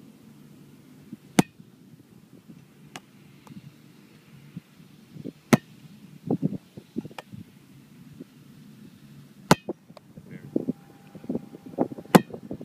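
A football slapping into the catcher's hands, four sharp smacks about four seconds apart, with low rumbling noise between them.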